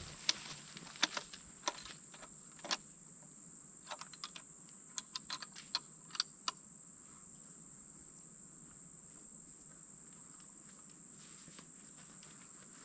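A scattered series of light, sharp clicks and taps over the first six seconds or so, then stopping, over a steady high-pitched insect drone.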